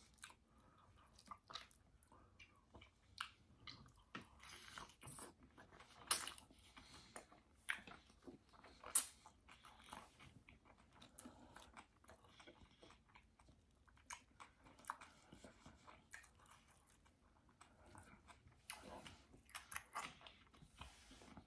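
A person chewing and biting close to the microphone: faint, irregular wet clicks and small crunches of a mouthful of omelette with mushrooms and onions, with a few louder clicks.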